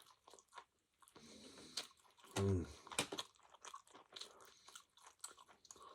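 A man chewing a mouthful of meat close to the microphone: irregular wet clicks and crunches, with one short hum-like vocal sound midway.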